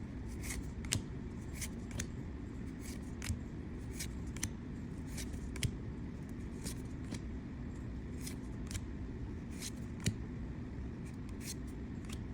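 Pokémon trading cards being handled and flipped through one at a time, with short, irregular clicks and snaps as each card is moved, over a steady low hum.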